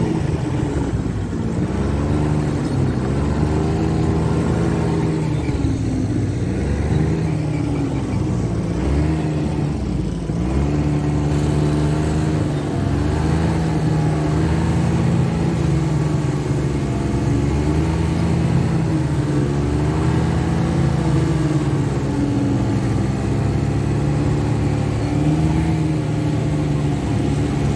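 Snowmobile engine running under way, close up from the seat. Its pitch rises and falls in slow waves as the throttle and speed change.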